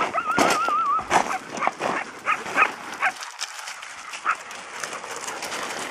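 Hound barking several times in quick succession, opening with a wavering, whining call; the barking dies down after about three seconds.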